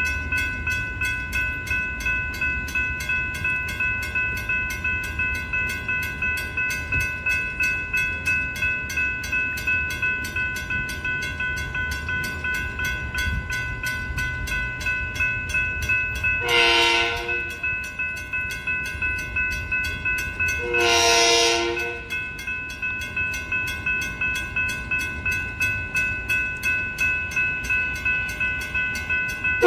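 Railroad grade-crossing bell ringing steadily at about two and a half strikes a second over the low rumble of an approaching Long Island Rail Road train. The train's horn sounds a short blast about 16 seconds in and a longer one about 21 seconds in, and a third blast starts at the very end.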